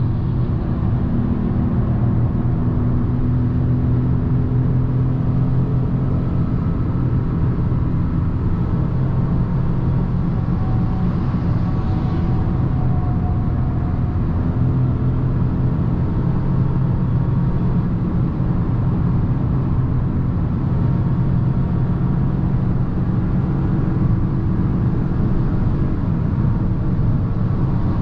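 Cabin noise of a 2022 Fiat 500 1.0 Hybrid cruising on a motorway: a steady low drone from its three-cylinder petrol engine, mixed with tyre and wind noise, at an even speed.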